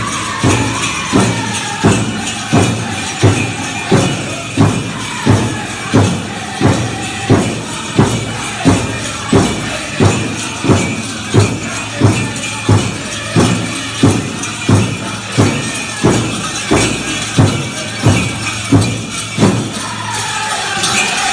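Powwow drum group playing a contest song for a Men's Chicken Dance: a big drum beats steadily, about one and a half beats a second, with high-pitched singing that falls in pitch near the start and again near the end. The jingling of the dancers' leg bells runs under the beat.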